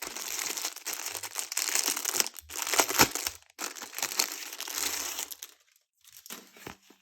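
Packaging crinkling and rustling as it is handled and unwrapped, loudest about three seconds in, thinning to a few light ticks near the end.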